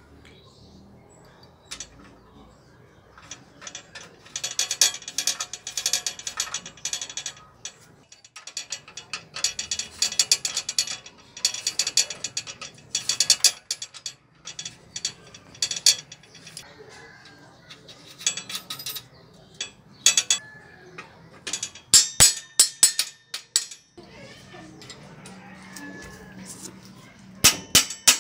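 Rapid metallic clicking and ratcheting in several bursts as a bicycle bottom bracket's axle, threaded cup and lockring are turned into the shell and tightened with pincers. Near the end come sharp metal strikes from a claw hammer.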